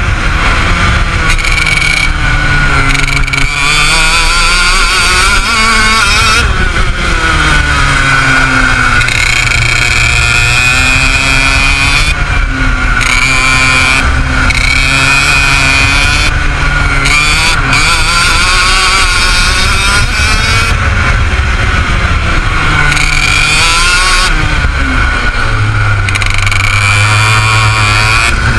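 IAME X30 Super 175cc single-cylinder two-stroke kart engine at racing speed, revving up and falling back again and again as it is driven around the track.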